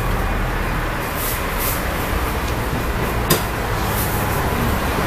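Steady rumble of road traffic, with a single sharp click about three seconds in.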